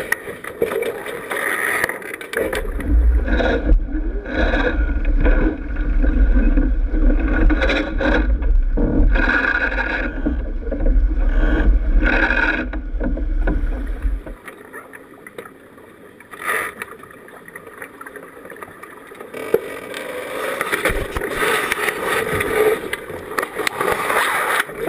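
Onboard sound of a sailing keelboat under way: wind buffeting the camera's microphone over water rushing along the hull, with scattered knocks and rubbing from crew and lines moving against the boat. The heavy wind rumble drops away about halfway through, then the rush of wind and water builds again near the end.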